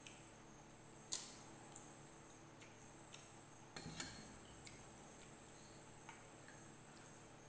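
A few light, sharp clicks and crackles of eating with the hands: papad being broken and fingers and small steel bowls knocking against steel plates. The loudest click comes about a second in, and a small cluster comes around four seconds. A faint steady high-pitched tone lies underneath.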